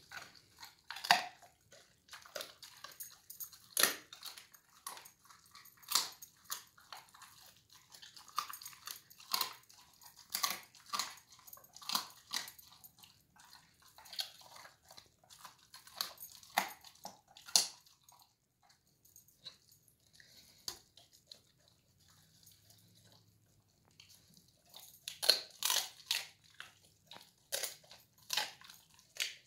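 German Shepherd puppy eating raw meat out of a metal pan: wet chewing and licking with irregular sharp clicks and knocks of teeth and tongue against the pan. There is a quieter stretch past the middle, then a quick run of clicks near the end.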